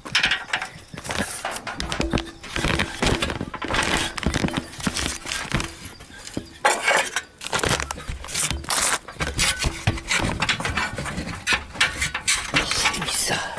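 Irregular clacks, knocks and scrapes of ceramic roof tiles being handled and shifted.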